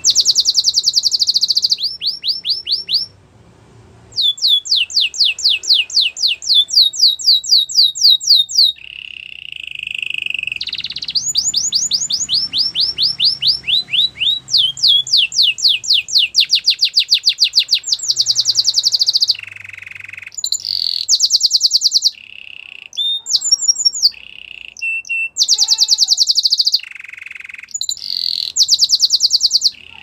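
Canary singing: long rolling trills of quick repeated high notes, broken now and then by a lower held whistle and short pauses.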